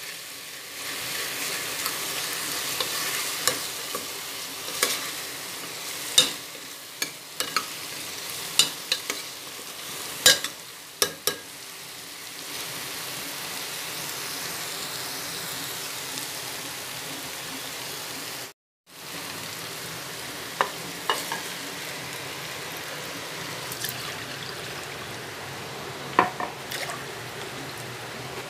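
Chopped vegetables sizzling as they fry in a pressure cooker pot, stirred with a spoon that clicks and scrapes against the pot now and then. The sound drops out for a moment about two-thirds through.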